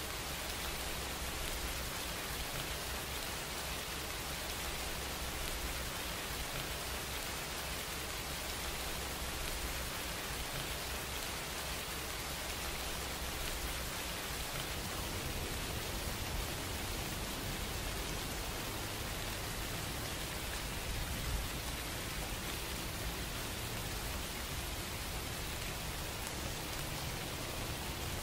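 A steady, even hiss with a low rumble underneath, unchanging throughout.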